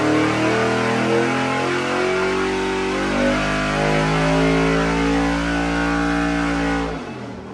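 Carbureted 5.3-litre GM V8 running under full load on an engine dyno, its pitch climbing steadily through a rev sweep. About seven seconds in the throttle closes and the engine sound falls away sharply.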